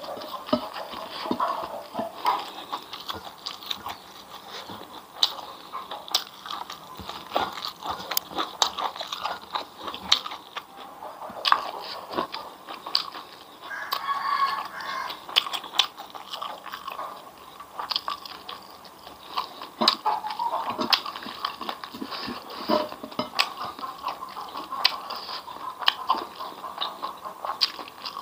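Close-up eating sounds of a person eating fried grasshoppers with rice by hand: repeated crunchy bites and chewing, with many short crackles throughout.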